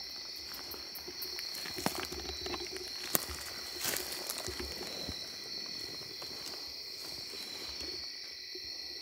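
Evening insect chorus of late-summer crickets and similar insects: a steady, high-pitched trilling drone. A couple of sharp clicks and some light rustling are heard in the first half.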